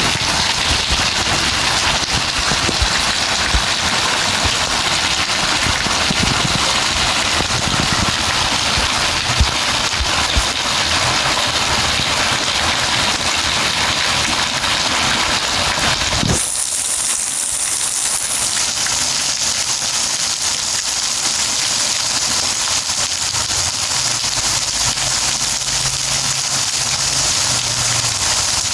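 Steady rain falling and pattering, dense and loud. About sixteen seconds in, the sound changes abruptly to a thinner, hissier rain with less low-end patter.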